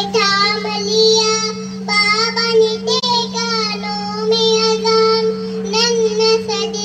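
A young boy chanting in a melodic, sung recitation into a handheld microphone, holding some notes long. A steady low hum runs underneath.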